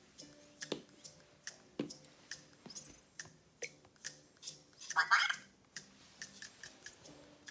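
Anki Cozmo toy robot driving on a wooden floor, its small motors whirring with a faint steady hum, amid scattered light clicks. A brief louder whirr comes about five seconds in.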